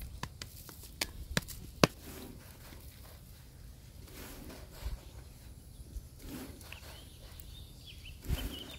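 Sharp taps and knocks of hands and dough against a wooden board while thin flatbread dough is handled, several in the first two seconds with the loudest about two seconds in. They are followed by soft rustling and a dull thump near the end.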